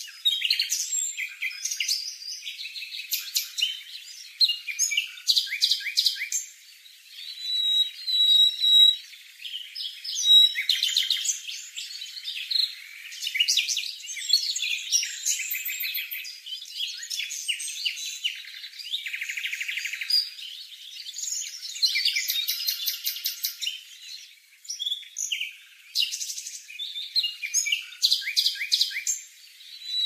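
A fledgling cuckoo begging for food from its small foster parent: runs of rapid, high-pitched chirping calls again and again with short pauses, and a few short whistled notes.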